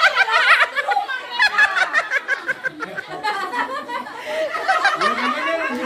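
A group of children laughing and chattering.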